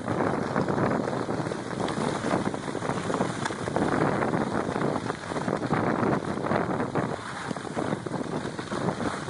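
Wind rushing over the microphone during a downhill ski run, mixed with the steady hiss of skis scraping through snow in a snowplow.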